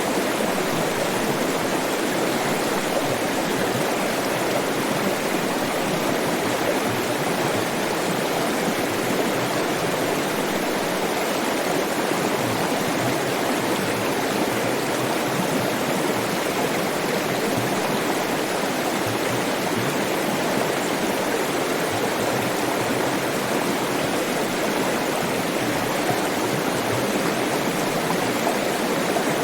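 Flowing stream water, a steady even rush and gurgle with no breaks.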